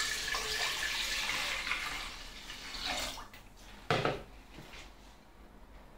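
Cold water poured from a jug into an empty cooking pot, a steady splashing that thins out and stops after about three seconds. A short knock follows about a second later.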